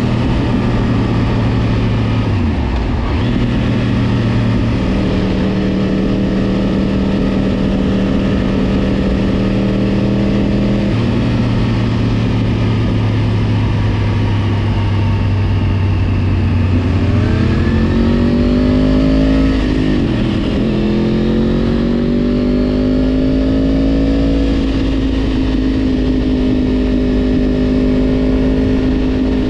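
Yamaha YZF-R1 inline-four sport-bike engine under way, loud and mostly steady. About two-thirds through, the revs climb, drop sharply at a gear change, then climb again and settle.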